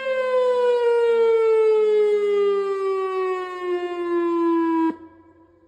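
Outdoor tornado warning siren sounding for a test of the warning system, its one loud tone falling steadily in pitch as it winds down, then cutting off suddenly about five seconds in.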